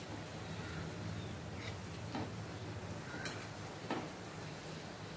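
Urad dal vadas deep-frying in hot oil in a small kadai: a faint steady sizzle, broken by a few light clicks of a metal slotted spatula against the pan as the vadas are turned.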